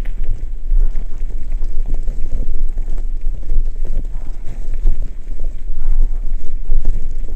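Wind rushing over the microphone, with the rumble and rattle of a mountain bike rolling over a gravel trail.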